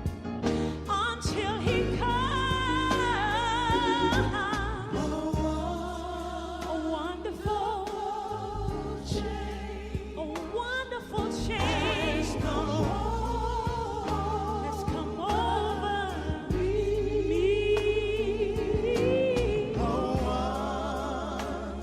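Gospel singing with vibrato, a soloist with voices joining in, over sustained bass and keyboard accompaniment.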